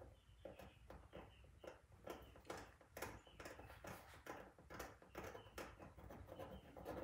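Faint scratching of a small pointed tool through oil paint on canvas, in quick, irregular short strokes, scraping the paint back to the canvas ground.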